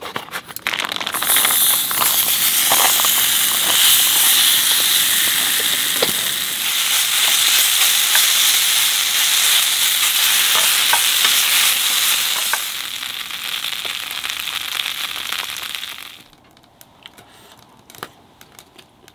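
Marinated chicken neck meat sizzling hard in a small square pan on a portable gas stove while it is stirred with a wooden spoon. The frying starts about a second in, eases a little after about twelve seconds, and then cuts off abruptly, leaving only a few faint clicks.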